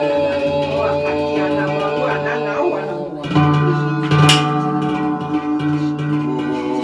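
Sound-bath music: sustained drone tones layered with plucked-string notes. A fresh chord is struck about halfway through, followed a second later by a bright, high-pitched strike.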